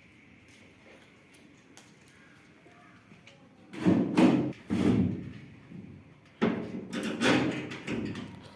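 Heavy thuds and clattering in two bursts, the first about four seconds in and the second about six and a half seconds in, as of heavy metal parts being handled and knocked together.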